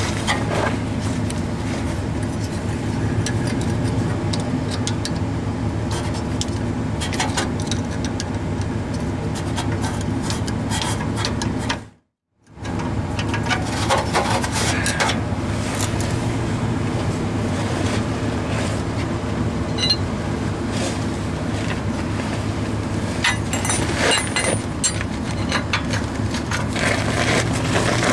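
A steady low mechanical hum throughout, with scattered light metal clinks and scrapes as a hose clamp and oxygen sensor socket are worked onto the rear oxygen sensor on the exhaust pipe. The sound cuts out completely for a moment near the middle.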